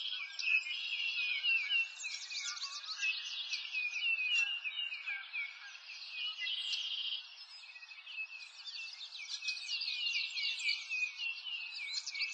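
A dense chorus of many small birds chirping and twittering, a continuous stream of quick, high notes. It eases off a little for a few seconds in the middle.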